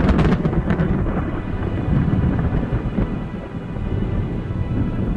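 Thunderstorm: the crackling tail of a thunderclap dies away in the first second, then continuous low thunder rumble with rain.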